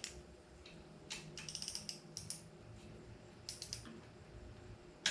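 3/8-inch ratchet with a 12 mm socket clicking in short runs as it is worked back and forth, loosening the clamp bolts of a motorcycle's eccentric rear-axle chain adjuster, with a single sharp click near the end.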